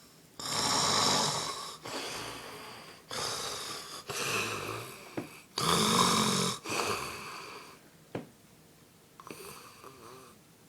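A person snoring loudly: three rasping snore-and-breath-out cycles, each lasting about two to three seconds. After about eight seconds the breathing turns much quieter, with a single sharp click at that point.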